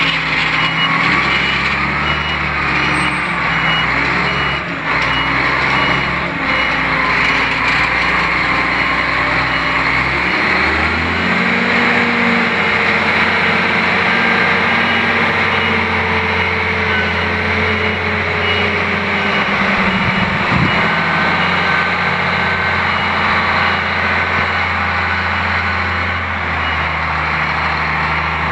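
Diesel engine of an articulated dump truck running and driving, its pitch shifting about a third of the way in. Near the end a vehicle's reversing alarm beeps steadily.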